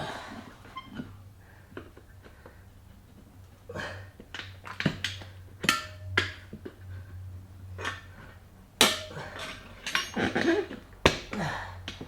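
Tyre levers knocking, clicking and scraping against a motorcycle wheel rim as a stiff tyre bead is levered on over it. The knocks come irregularly, sparse at first and busier from about four seconds in.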